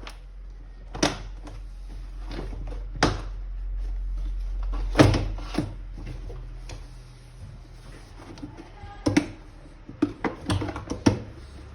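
Handling noises from working on a vacuum cleaner: scattered knocks and clunks of parts and tools, the loudest about halfway through, with a quick run of taps near the end, over a low steady hum.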